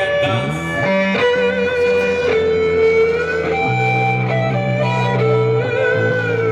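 Live instrumental music: a held, slightly wavering melody over long, steady low bass notes that change twice.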